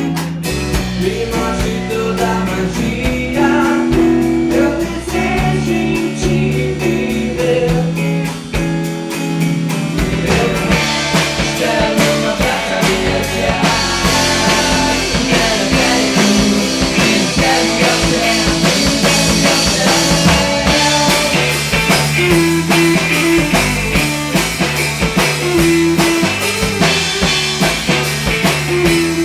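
Pop-rock band music with guitar and drum kit. The drums and cymbals fill out and get fuller about ten seconds in, and again around fourteen seconds.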